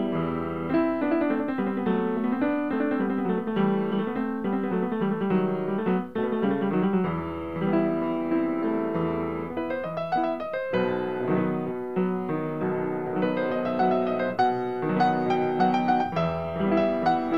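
Persian classical instrumental music: a piano playing quick melodic runs over held lower notes, with a brief dip about six seconds in.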